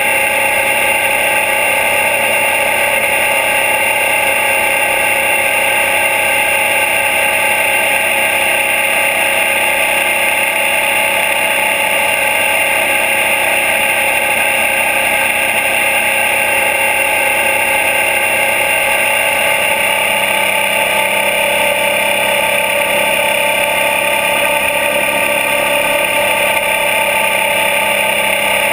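Suzuki DL650 V-Strom's V-twin engine running steadily at cruising speed, heard close up from a camera mounted on the engine guard.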